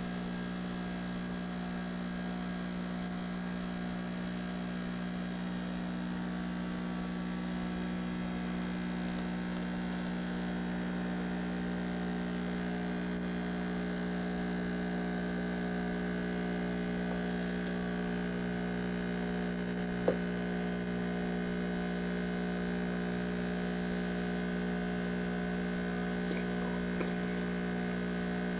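Steady low hum made of several unchanging tones, with one sharp click about twenty seconds in and two faint ticks near the end.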